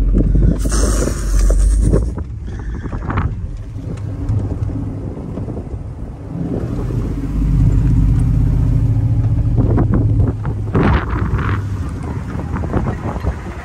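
Dodge pickup's Hemi V8 engine pulling through soft sand on the dunes. The engine note holds steady under load for several seconds in the middle, with gusts of wind on the microphone in the first couple of seconds and tyre and sand noise coming and going.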